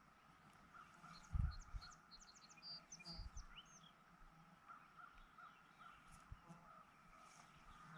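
Faint outdoor birdsong: a bird gives a quick run of high chirps and trills from about one to three and a half seconds in, over a softer repeated call. Two brief low thumps come at about one and a half and three seconds in.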